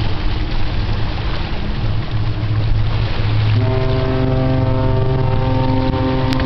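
Ship's horn sounding a salute, a steady chord-like blast that starts about three and a half seconds in, over a steady low rumble.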